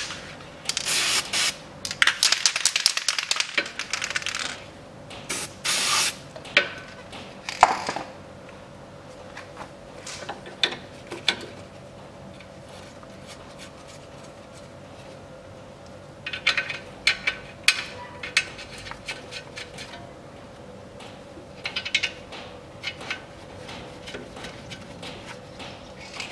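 Ratchet wrench clicking in several short runs as the bracket bolt on a front suspension strut is run in. Loose metal clinks and knocks from the tools come in between, with quieter gaps.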